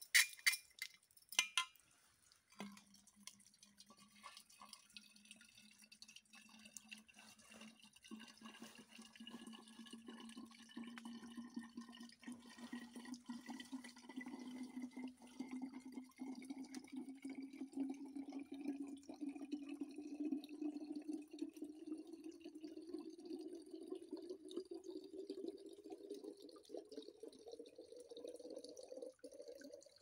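A thin stream of water splashing into a stainless steel bottle as it fills, its pitch rising slowly and steadily as the bottle fills up. A few sharp metallic clinks in the first two seconds as the bottle is handled on the stones.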